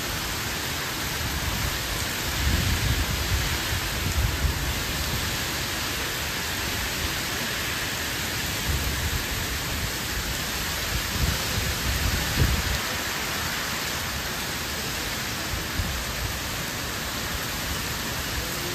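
Heavy rain pouring on trees and a tiled terrace: a dense, steady hiss. A few bursts of low rumble come about two to four seconds in and again around eleven to twelve seconds.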